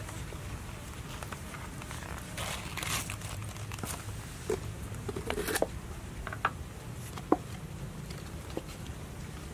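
Crinkling and rustling of a large leaf, with a few light clicks, as stick-skewered grilled fish are laid on it, over a low steady hum.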